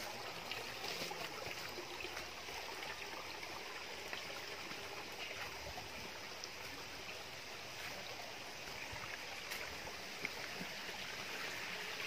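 Steady rush of flowing stream water, with a few faint knocks over it.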